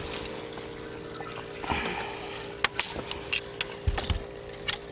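Water splashing and trickling beside a small fishing boat over a steady hum, with scattered sharp clicks and a couple of low thumps about four seconds in.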